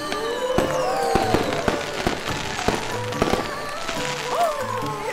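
Fireworks sound effects: several high whistles that fall in pitch and a string of sharp bangs and pops, over festive background music.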